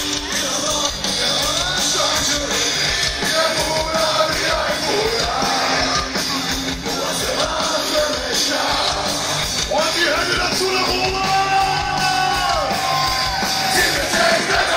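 Live rock band playing loudly with sung vocals, recorded on a phone microphone from inside the crowd, with the audience yelling and singing along.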